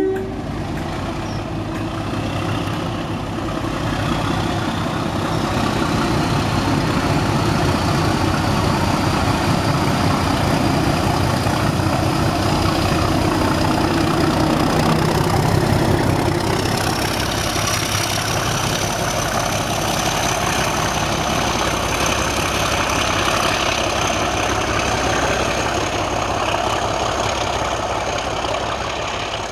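Class 37 diesel-electric locomotive's English Electric V12 engine under hard acceleration ('thrash'), with a turbocharger whistle rising steadily in pitch throughout. A short two-note horn blast is heard right at the start. The engine grows louder for the first half, loudest as the locomotive passes.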